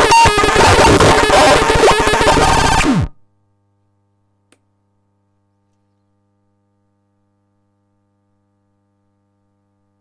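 Synthesized electronic sounds from the WUZBRUCHT SP-161: a dense, clashing jumble of tones, pitch sweeps and noise that cuts off suddenly about three seconds in on a short falling tone, followed by silence with a single faint click.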